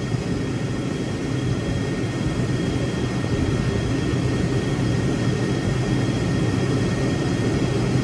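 Steady drone of running shop machinery: a low hum under an even hiss, unchanging throughout.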